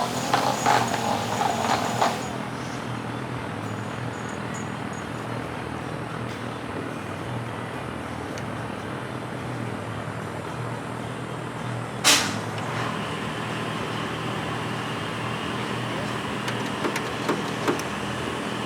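Background music that ends about two seconds in, followed by a steady low hum and hiss of workshop ambience. One sharp knock comes about twelve seconds in, and a few faint clicks come near the end.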